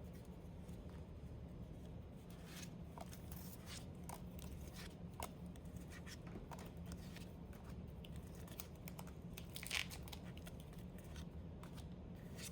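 Faint rustling and flicking of Pokémon trading cards and their foil booster pack being handled as the cards are slid through the hands one by one, with a sharper swish about ten seconds in.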